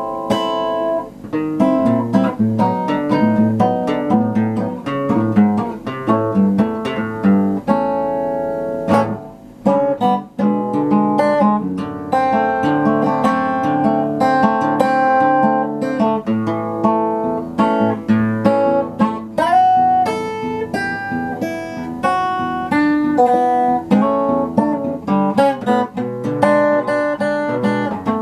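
Steel-string acoustic guitar played through a Variax modelling unit, picking single-note lines mixed with chords. A note slides up about two-thirds of the way through.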